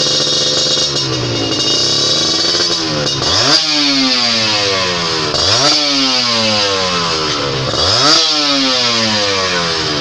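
Kawasaki Ninja motorcycle fitted with an RCB aftermarket exhaust, idling and then revved in repeated throttle blips: the engine note climbs sharply and falls back to idle about five times.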